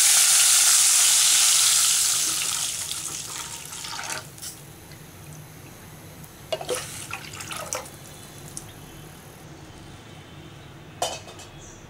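Tamarind water with ground pepper poured into hot tempering oil in an aluminium kadai: a loud hiss of liquid hitting hot oil that dies away over about four seconds. A few brief clinks follow.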